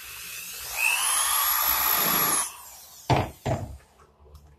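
Cordless drill/driver driving a screw into an MDF cabinet shelf: the motor whines up over the first second, runs steady and cuts off after about two and a half seconds. Two sharp knocks follow about three seconds in.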